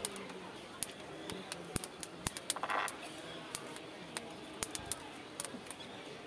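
Irregular sharp crackles and pops from an ear of corn roasting directly on glowing charcoal in a clay stove.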